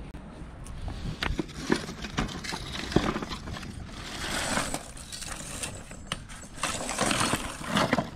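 Rusty scrap metal clinking and scraping as pieces are shifted on a concrete path, with scattered knocks and footsteps.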